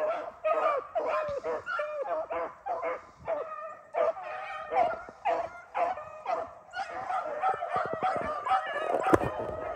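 A pack of beagles baying as they run a rabbit: a steady string of yelping, falling-pitched bawls, several a second, from more than one dog. A single sharp knock comes near the end.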